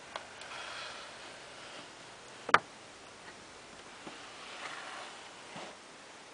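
Drawers of a wooden jewellery cabinet being worked by hand: a drawer slides shut with one sharp knock about two and a half seconds in, then another drawer is pulled open with a short sliding rustle and light clicks from its metal pull.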